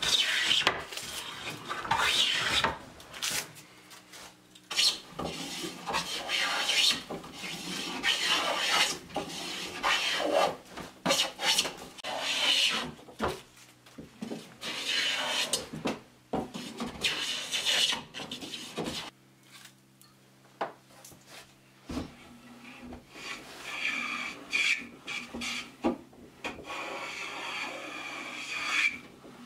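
Wooden hand plane shaving a wooden floorboard: a run of repeated strokes with short gaps between them, a quieter spell about two-thirds through broken by a single knock, then more strokes near the end.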